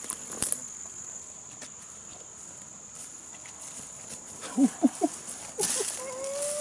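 Steady high-pitched buzz of insects, with a few rustles and snaps of brush underfoot in the first half second. About four and a half seconds in come a few short, loud voice sounds, and near the end a drawn-out call that rises slightly in pitch.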